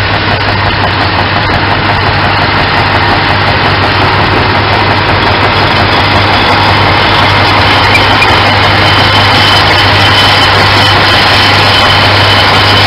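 Vintage tractor engine running hard under load in a tractor pull: a steady low drone that grows a little louder over the first half as the tractor comes closer.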